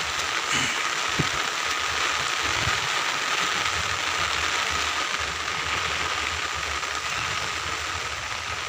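Rain falling steadily on an open umbrella held overhead, a dense, even crackle of drops on the canopy.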